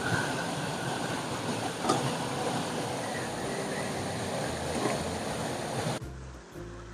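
Steady rushing of a shallow river flowing over rocks. About six seconds in the water sound cuts off abruptly and background music begins.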